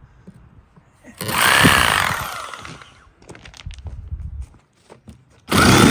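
A power tool running in two short bursts, about a second in and again near the end, used to cut open packaging for want of a knife.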